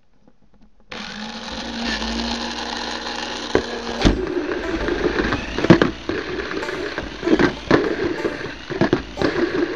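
A Tamiya Mini 4WD car's small electric motor switches on with a steady whine about a second in. From about four seconds in the car runs along a plastic slot-less track, its chassis and rollers rattling and knocking irregularly against the track walls, heard from a camera riding on the car.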